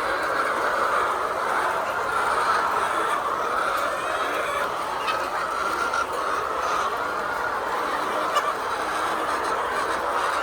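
A large flock of laying hens clucking and calling continuously, their many calls blending into a steady mass of sound, with a few faint clicks.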